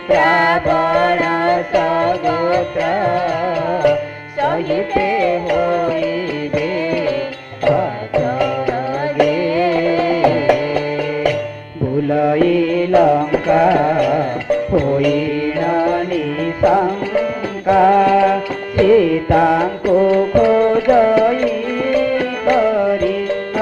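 Traditional Odia music accompanying a Ravana Chhaya shadow puppet play: a wavering melodic line over steady rhythmic percussion, with short breaks about four, eight and twelve seconds in.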